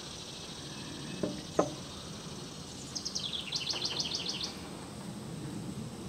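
A songbird singing a quick run of repeated high notes about halfway through. A single short knock from the metal spoon against the steel dye pan comes about a second and a half in.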